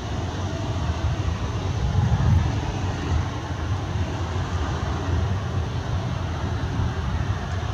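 Engines of a four-engine US Air Force Boeing C-135-family jet at taxi power: a steady jet rumble and rush, heaviest in the low end.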